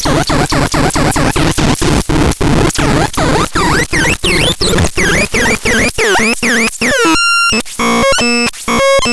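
Synthesizer playing a fast pulsing pattern of about four notes a second. It starts harsh and noisy, turns into chirping pitch sweeps about halfway through, then holds one clean tone briefly near the end before going on in short clean notes that step in pitch.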